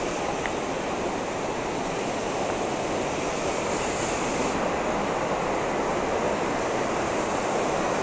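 Steady rush of a waterfall, an even, unbroken hiss of falling water.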